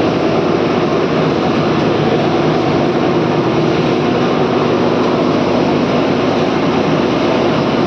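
PP plastic scrap washing machine running: a steady, dense machine noise that holds an even level throughout.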